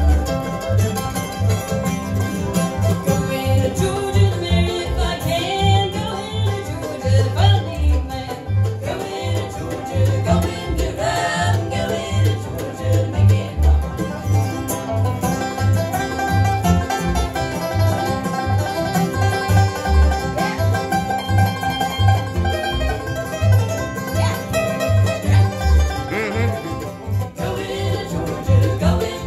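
Live acoustic bluegrass band playing: banjo, acoustic guitar, mandolin, fiddle and upright bass over a steady bass beat, with several voices singing in harmony.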